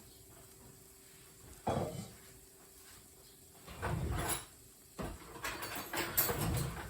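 Kitchen handling noises: a sharp knock about a second and a half in, then two bouts of knocking and clatter, the second starting with a sharp hit about five seconds in, over a faint steady hum.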